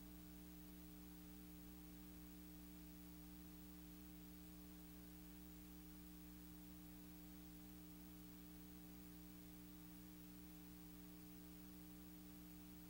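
Near silence: a faint, steady low hum with hiss. None of the unloading is heard.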